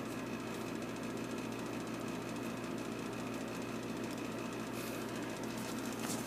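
Steady mechanical running noise, a low hum with a fast even rattle, from an unseen motor-driven machine. There is a brief click about six seconds in.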